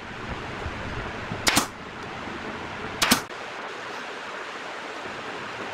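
Nail gun firing twice, about a second and a half apart, driving nails through pallet boards into a wooden frame. Each shot is a sharp doubled crack.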